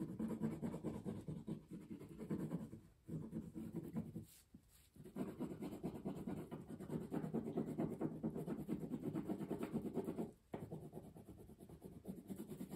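Crayon rubbing on paper in quick back-and-forth colouring strokes, careful colouring in a small area rather than scribbling, in several stretches with brief pauses about three, four and a half, and ten and a half seconds in, softer near the end.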